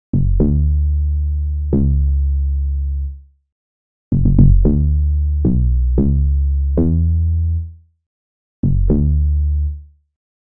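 Deep synthesized Amapiano log drum bass notes in three short phrases separated by silence: three notes, then a quick run of about seven, then two. Each note starts sharply and holds with a slow fade.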